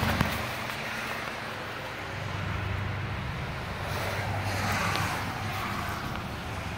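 Outdoor air-conditioning units running: a steady rush of fan air with a low electrical hum underneath, and a single short click just after the start.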